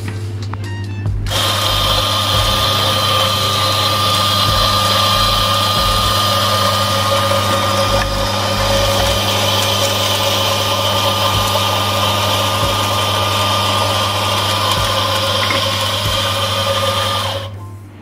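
Electric doser coffee grinder switched on, its motor and burrs running steadily with a high whine, then cutting off shortly before the end.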